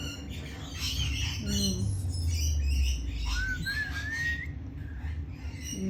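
A flock of parrots calling and squawking noisily over each other while feeding, with one rising whistled call about three seconds in.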